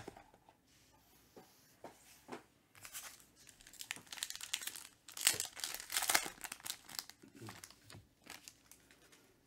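Plastic wrapper of a trading-card pack being torn open and crinkled, a run of crackling from about three to seven seconds in. A few light clicks come before it.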